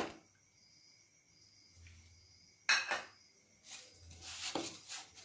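A sharp knock at the start, then a louder knock of a wooden spatula against a non-stick kadai about halfway through, followed by scraping and stirring as jaggery is worked into dry-roasted grated coconut.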